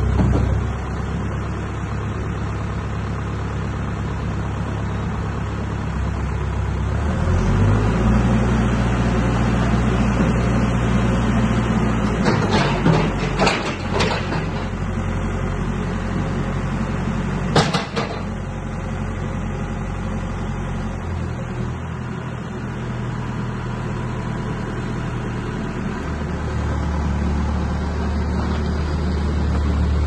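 Terex TLB890PS backhoe loader's diesel engine running and being throttled up and down while the loader arm is worked and the machine moves off, its note stepping up and down a few times. A handful of sharp knocks come about midway.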